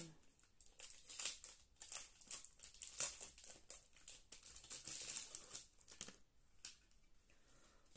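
Plastic packaging crinkling and rustling in irregular bursts as it is handled, densest through the middle and dying down near the end.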